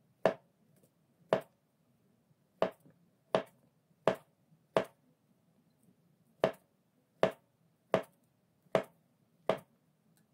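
A chef's knife slicing a ripe plantain into thin rounds, the blade knocking sharply on a white plastic cutting board with each cut. There are eleven cuts, about one every 0.7 s, with one longer pause halfway through.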